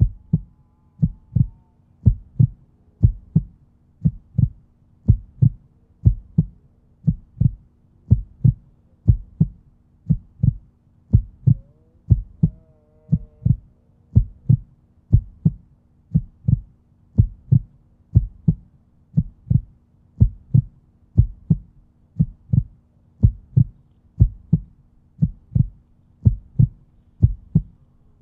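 Deep, evenly spaced thumps like a heartbeat, about three every two seconds, over a faint steady hum: a pulsing soundtrack laid over the footage.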